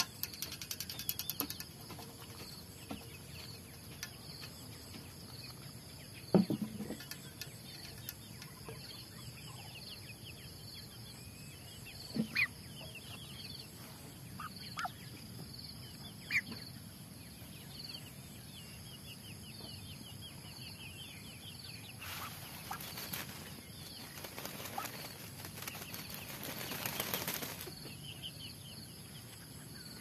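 Muscovy duck bathing at a steel water bowl: a few sharp splashes and taps in the first half, the loudest about six seconds in, then two rustling flurries of wing flapping and feather shaking near the end. An insect chirps steadily in the background.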